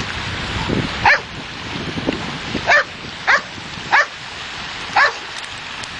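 A dog barking in short high yelps, five of them spaced a second or less apart, over steady wind and surf noise.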